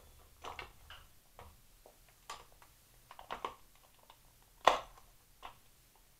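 Scattered short clicks and light knocks of a hard plastic crankbait lure and its packaging being handled, with one sharper knock about three-quarters of the way through.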